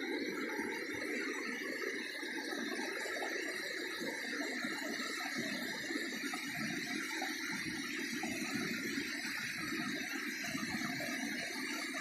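Natural waterfall rushing steadily, an even wash of falling water.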